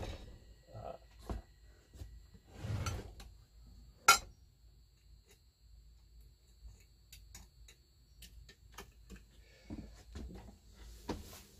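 Metal covers and parts of a White 305 sewing machine being handled: a sharp click at the start, a short rustle, another sharp clack about four seconds in, then faint scattered ticks as the face plate on the machine's end is swung open.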